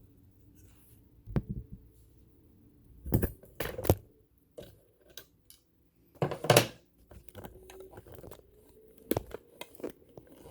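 Scattered sharp clicks and knocks, with some scraping, from parts of a vintage sewing machine being handled and fitted back into place.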